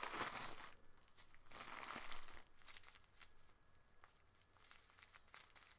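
Small plastic bag of square diamond-painting beads crinkling as it is handled, louder in the first second and again around two seconds in, then only faint rustles and ticks.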